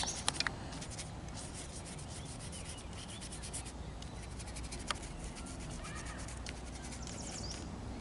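Paintbrush rubbing and scrubbing softly over wax crayon on textured watercolor paper, blending the colour, with a few light clicks near the start.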